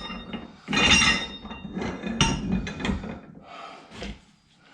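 Metal parts of a steel V-head pipe stand knocking and clinking as its telescoping post is adjusted in height: a string of separate knocks, each with a short metallic ring, thinning out near the end.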